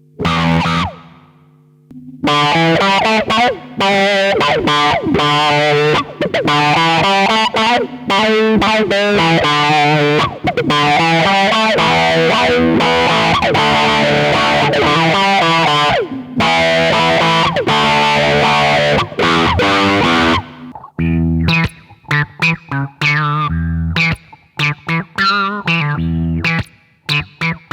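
Electric guitar played through a Behringer BM-11M low pass filter pedal, the filter sweeping the tone as sustained distorted chords ring out, changing to short choppy stabs about three quarters of the way in.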